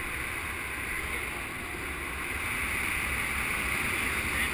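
Steady wind noise buffeting the action camera's microphone as the paraglider is towed through the air.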